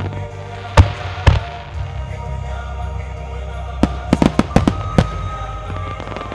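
Aerial firework shells bursting in a starmine: two loud bangs about a second in, then a rapid cluster of about eight bangs a little past the middle. Music plays under them throughout.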